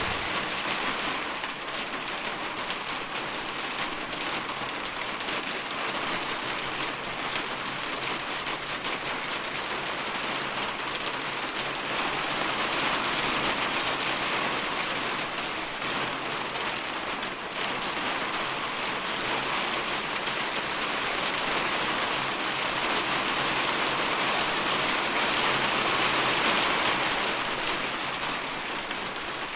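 Steady rain falling and pattering on a surface, a dense even hiss of drops that swells a little louder in the second half.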